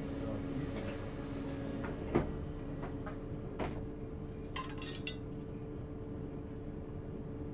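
Inside a stationary 651 series electric train: a steady equipment hum with two held tones, broken by a few scattered clinks and knocks, with a sharp knock about two seconds in and a cluster of small clinks near the middle.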